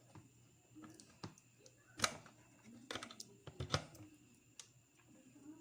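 A series of short plastic clicks and knocks from a USB cable plug being pulled out of a multi-port USB charger and handled, the loudest about two seconds in.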